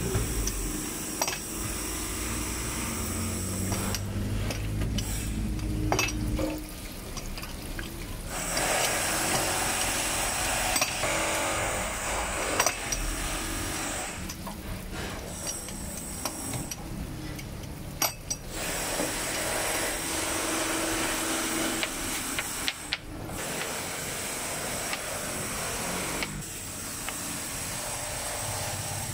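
Scattered sharp clicks and knocks of a metal rolling pin and dough scraper on a floured wooden worktable as dough is rolled and cut, over a steady hiss of stall background noise.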